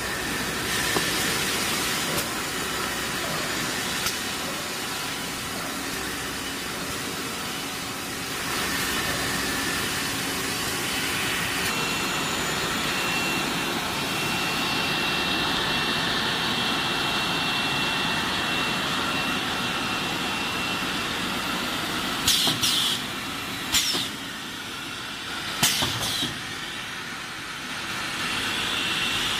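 Toilet-paper roll production machinery running: conveyors carrying cut rolls and a roll packing machine give a steady mechanical din and hiss. A steady high whine sounds through the middle, and several short, sharp clacks come near the end.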